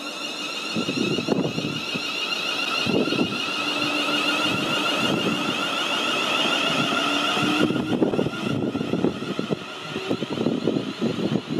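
A ScotRail Class 380 Desiro electric multiple unit pulling away, its traction equipment giving a steady high whine and a lower tone that rises slightly, fading about eight seconds in. Gusts of wind buffet the microphone.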